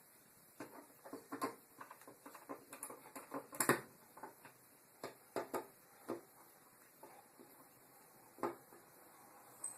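Irregular small clicks and taps of a wall light switch being pushed into its electrical box and its mounting screws turned in with a screwdriver, busiest in the first six seconds, with a louder knock a little over three and a half seconds in.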